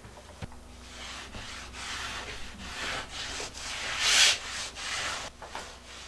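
Cloth rag rubbing wood stain over a painted wooden cabinet door in repeated scrubbing strokes, the loudest and harshest stroke about four seconds in.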